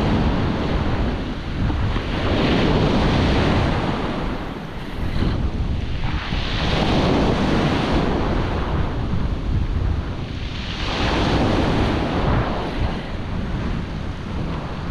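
Ocean surf breaking and washing up a coarse-sand and gravel beach, swelling with each wave about every four to five seconds. Strong wind blows across the microphone throughout.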